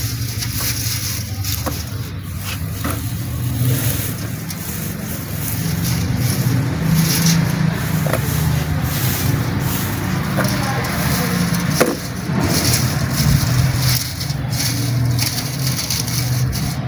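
Dry wood-wool cooler pad fibre (khus) crackling and rustling as it is pulled apart and spread by hand over a cooler pad frame. A steady low mechanical rumble runs underneath.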